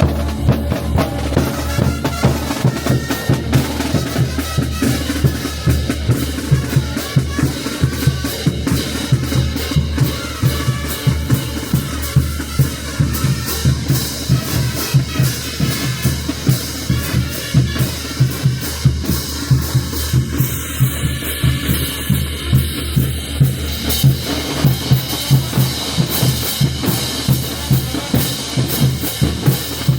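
A festival band playing, driven by a steady, evenly repeating beat of bass drum and snare.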